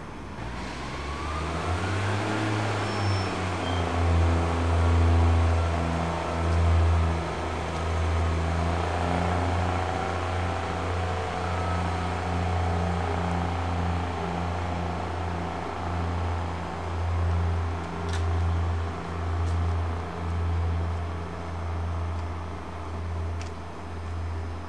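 Class 142 Pacer diesel railbus pulling away. Its engine rises in pitch over the first couple of seconds, then settles into a steady low drone that swells and fades about once a second in the second half.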